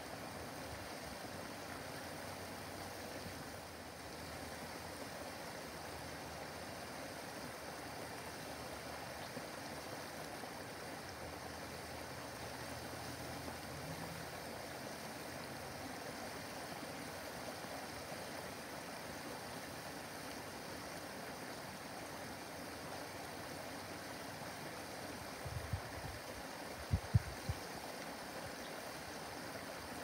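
Small backyard waterfall cascading over rocks into a pond: a steady rush and splash of falling water. A few short low thumps near the end.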